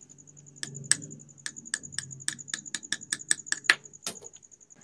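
Small hammer tapping a steel pin punch, about fourteen quick light metal taps at roughly four a second. It is driving the retaining pin out of a sewing machine bobbin winder's pulley hub to free a jammed winder.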